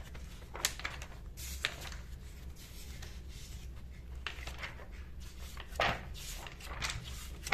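Pages of a thick textbook being turned by hand: several paper rustles and flaps, the loudest about six seconds in, over a faint low hum.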